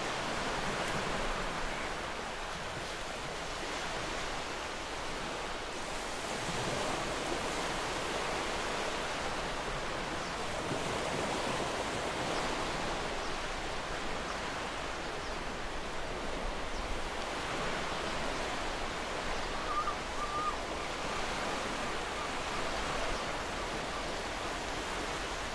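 Waterfall rushing steadily, an even wash of falling-water noise that does not let up.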